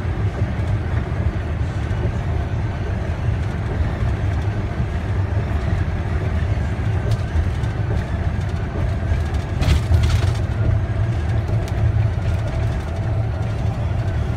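Steady road and engine noise of a car driving, heard from inside the cabin: a continuous low drone with a brief louder rush a little under ten seconds in.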